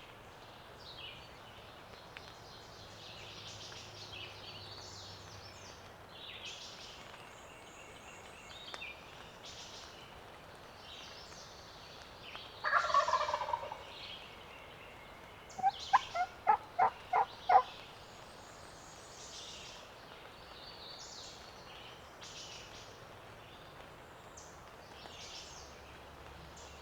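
Wild turkey gobbler gobbling once, loud and close, about halfway through, followed a couple of seconds later by a quick run of about seven turkey yelps. Songbirds sing faintly throughout.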